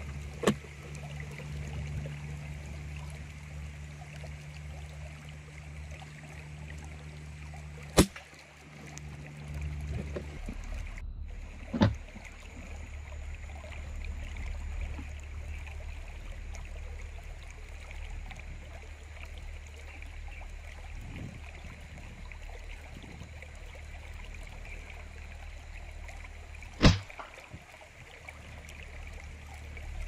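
Pellet airgun firing: four sharp cracks, the loudest about 8 seconds in and near the end, over a steady low hum and a faint hiss.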